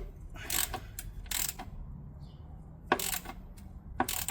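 Ratchet wrench clicking in short back-and-forth strokes, about a second apart, as a transmission pan drain bolt is worked into its freshly chased threads until it tightens.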